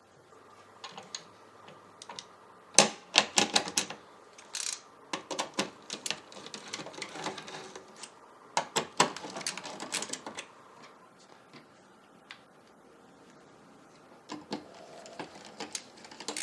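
Bursts of rapid small clicks and rattles from hard plastic and metal computer parts and screws being handled, with pauses between the bursts.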